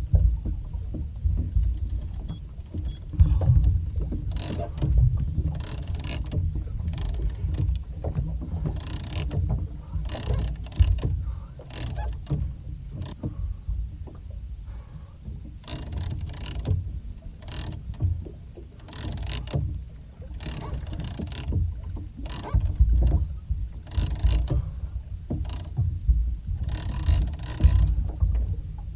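Small fishing boat drifting at sea: a steady low rumble of wind and hull motion, with irregular short hissing bursts of water washing against the hull.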